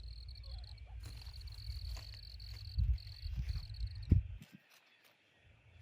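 A cricket trilling steadily at a high pitch, stopping about four seconds in, over a low rumble of wind on the microphone. Two soft knocks come near the end of the trill, the second the loudest sound.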